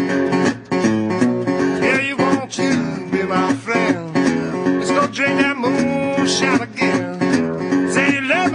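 Background music: a song led by strummed acoustic guitar, with a steady beat.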